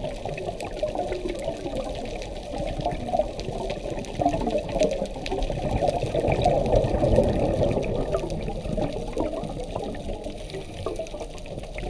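Scuba diver's exhaled bubbles gurgling out of the regulator, heard underwater, with a longer, louder rush of bubbles from about four to eight seconds in.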